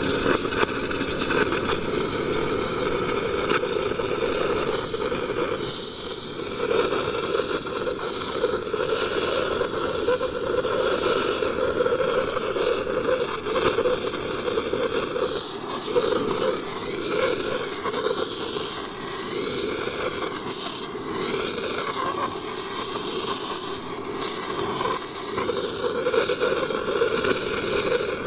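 Oxy-acetylene torch flame burning with a steady hiss, wavering a little in level.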